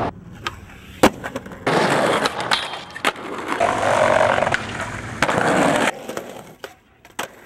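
Skateboard wheels rolling on rough concrete, with several sharp clacks of the board hitting the ground; the loudest comes about a second in.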